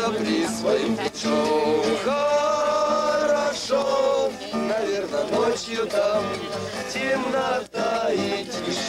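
A group of men singing together in unison to a strummed acoustic guitar, with a short break about three-quarters of the way through.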